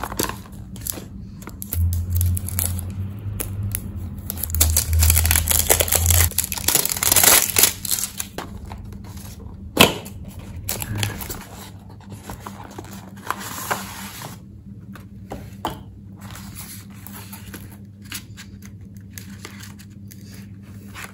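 Packaging of a box of honey sticks rustling and crinkling as it is opened by hand. The sound is loudest in the first several seconds, with one sharp click about ten seconds in, then fainter handling.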